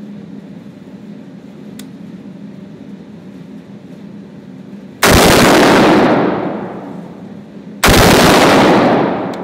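Two AR-15 rifle shots about three seconds apart, each cracking out suddenly and trailing off in a long echo down the indoor range lane.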